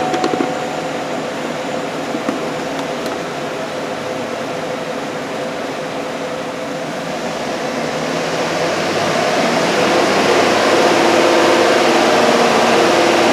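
GMC Sierra Denali's 6.2 L V8 idling steadily, growing louder in the second half. It is idling better, with fuel trims back at zero, after a lean-running rough idle.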